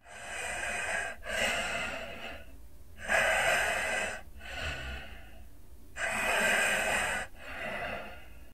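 Heavy breathing: three deep breaths in and out, each a longer, louder rush followed by a shorter, softer one.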